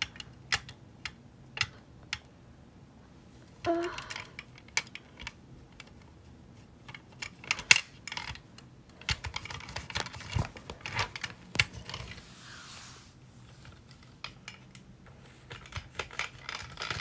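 Irregular small clicks and taps of a plastic toy car being handled and set down on a wooden floor, with a short rubbing swish of a cloth over it about twelve seconds in.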